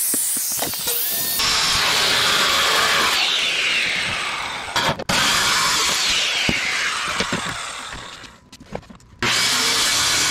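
Corded circular saw cutting through an old plywood sheet: a loud rasping cut with a motor whine that falls in pitch as the blade loads into the wood. It comes in three stretches, dropping out briefly about five seconds in and dying away for about a second near the end before the next cut starts.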